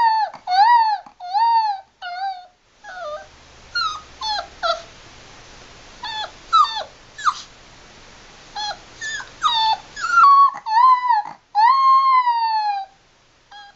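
Seven-week-old Labrador puppy howling: a run of short, high, arching yowls, then sharper brief yelps and whines, ending in a longer howl that slides down in pitch.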